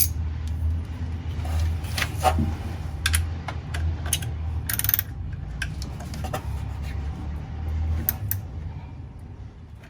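Hand ratchet clicking in short, uneven runs while tightening an ignition coil's hold-down bolt, over a steady low hum.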